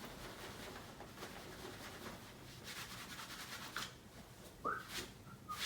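Faint rustling and rubbing of clothing and skin against a padded chiropractic treatment table, with a short squeak falling in pitch and a couple of sharp clicks near the end.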